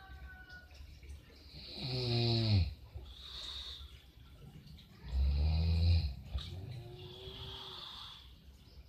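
A person snoring loudly: two strong snores about three seconds apart, the first sliding down in pitch as it ends, with softer breathing between them and a fainter, thinner snoring breath near the end.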